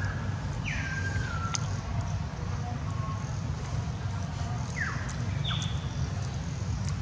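A steady low outdoor rumble, with a few high whistled calls over it: one falls in pitch about a second in, and another falling call and a brief high steady note come about five seconds in.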